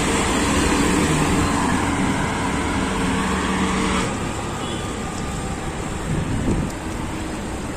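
Road traffic noise heard while riding a bicycle along a city road; the sound changes abruptly about four seconds in.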